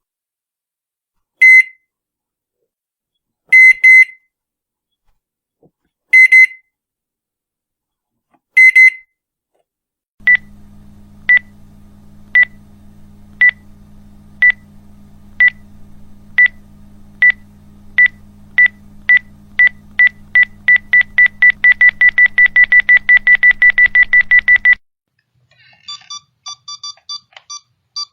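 A string of electronic beep sound effects. First come short, high single-pitch beeps, mostly in pairs, every two to three seconds. Then beeps over a low hum start about once a second and speed up until almost continuous, then cut off. Near the end there is quick alarm-clock-like beeping at several pitches.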